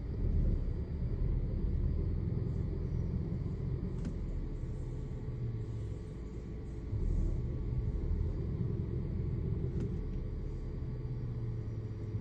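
Car engine idling rough, a low uneven rumble: misfires from a lean air-fuel mixture caused by a vacuum leak at the PCV valve.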